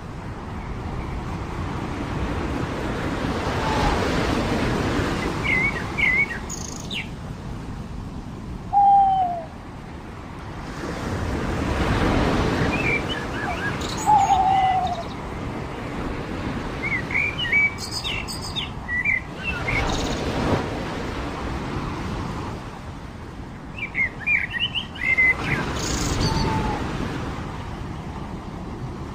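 Surf washing onto a beach in slow swells that rise and fade about every eight seconds, with birds chirping over it. Two short, falling calls at about nine and fourteen seconds in are the loudest sounds.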